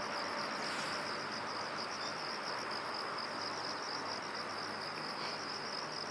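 Crickets chirping steadily in a continuous rapid pulsing trill, over a soft background hiss.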